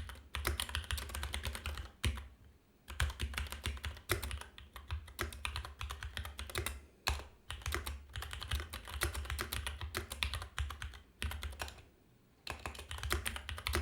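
Computer keyboard typing in quick runs of keystrokes, with short pauses about two seconds in and again near the end.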